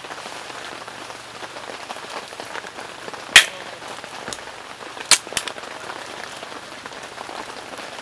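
Steady rain falling, with one sharp loud click about three and a half seconds in as the full-aperture lid of an Asahi Super Dry Nama Jokki beer can is pulled open, then two smaller clicks about five seconds in.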